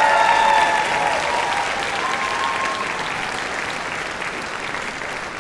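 Concert audience applauding and cheering, with whoops in the first few seconds, the applause slowly fading.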